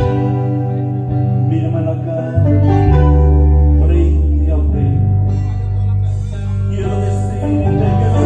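Live band music led by a strummed acoustic guitar, with held bass notes and a man singing.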